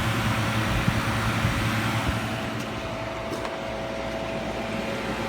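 Vintage Philco Noiseless 6800 BTU window air conditioner running, its compressor and fan giving a steady hum. About two seconds in, the sound gets a little quieter and duller.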